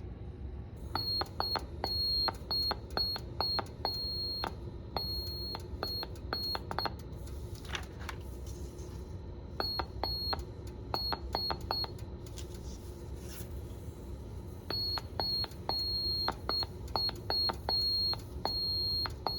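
Square-wave beeps from a 555 timer astable circuit driving a small speaker, keyed on and off by an IR sensor to sound Morse code for 'Elab is fun'. A high tone comes in short and long beeps (dots and dashes), each starting and stopping with a click, in three runs separated by pauses of a couple of seconds.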